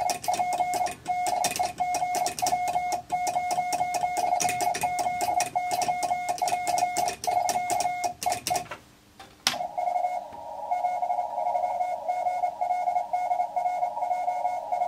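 Hand-sent Morse code (CW) from a ham radio: a steady beep keyed into dots and dashes, with the mechanical clicks of the Morse key on each stroke. It stops about nine seconds in, and after a single click another Morse signal at the same pitch comes in over receiver hiss: the other station's reply.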